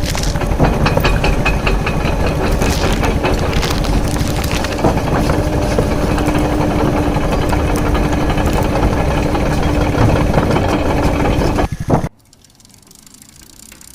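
Loud truck engine running steadily with a low rumble and a steady hum through the middle. It cuts off suddenly about twelve seconds in.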